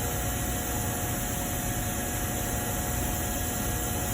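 Steady background hum and hiss with a few faint steady tones and no other events.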